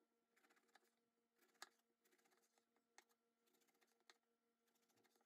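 Very faint chef's knife slicing thin lengthwise slices through an eggplant on a wooden cutting board, with soft scattered clicks of the blade; the sharpest come about one and a half, three and four seconds in, over a faint steady hum.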